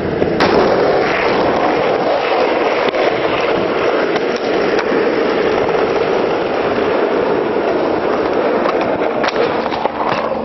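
Skateboard wheels rolling over rough asphalt, a steady gritty roar, broken by a few sharp clacks of a board hitting the ground: one just after the start and several near the end, where a skater falls.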